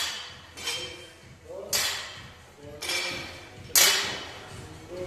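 Light barbells being set down on a rubber gym floor during deadlift reps, each touch-down a sharp metallic clank with a short ring, coming about once a second from two lifters. Voices in the background.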